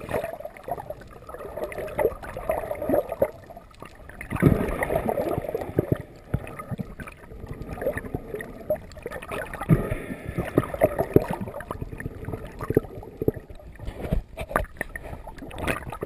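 Muffled underwater sound heard through a camera's waterproof housing: water gurgling and washing around it, swelling and fading, with many irregular clicks and knocks.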